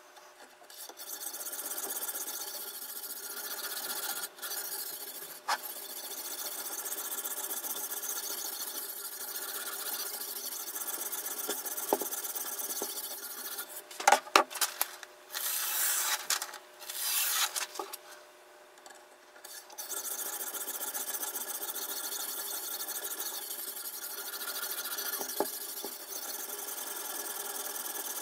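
Sharpening stone on the guide rod of a Toohr #2 knife sharpener being stroked along a chef's knife edge: a steady abrasive scraping, with a cluster of sharp clicks about halfway through and a short lull about two-thirds in.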